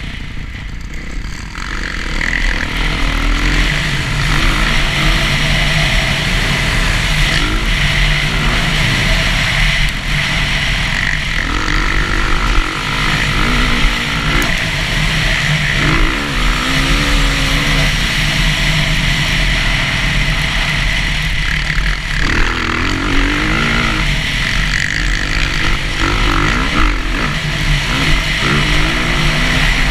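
Dirt bike engine heard from on board, revving hard and repeatedly rising in pitch through the gears, then dropping back as the rider shifts or rolls off the throttle.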